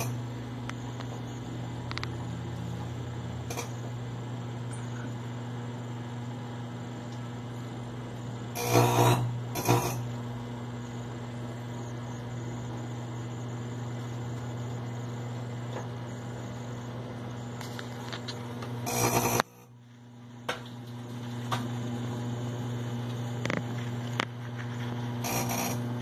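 Microwave oven running with a steady electrical hum, broken by short loud bursts of arcing, two close together about nine seconds in and another near nineteen seconds, after which the hum briefly drops out and comes back. The arcing sounds like a short circuit and comes from sparking inside the cavity, which the owner puts down to a burned mica waveguide cover plate.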